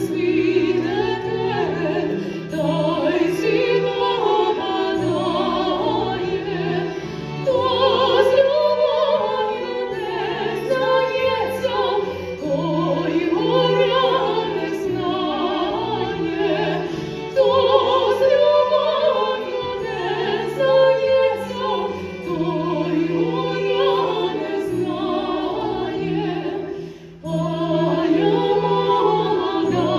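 A woman singing an opera aria with orchestral accompaniment, with a brief break in the music near the end.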